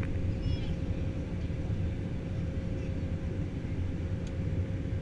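Airbus A320 cabin noise in flight: the steady low rumble of the jet engines and airflow heard from a window seat, with a thin steady hum over it.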